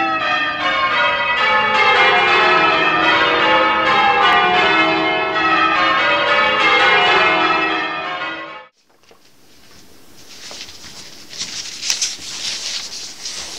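Church bells ringing, many bells struck one after another in quick succession, cutting off suddenly about nine seconds in. Then paper rustling and handling noise close to the microphone.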